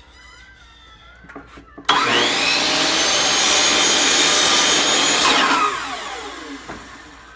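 An electric power tool's motor starts abruptly about two seconds in, runs at a steady high whine for about four seconds, then spins down with falling pitch.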